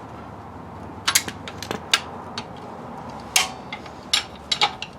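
Steel hand tools clinking and clanking, about a dozen sharp metallic clicks: a wrench and locking pliers (vise grips) being set and clamped on an engine bolt.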